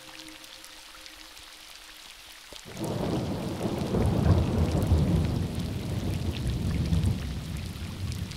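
Rain falling on a river surface, with a loud roll of thunder breaking in suddenly about three seconds in, swelling for a couple of seconds and then rumbling away slowly.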